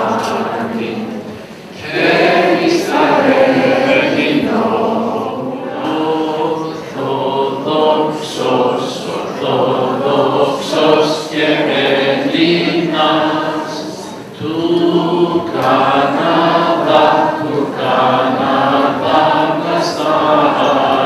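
A choir singing Greek Orthodox church chant in long held phrases, with brief breaks between phrases about two seconds in and near the middle.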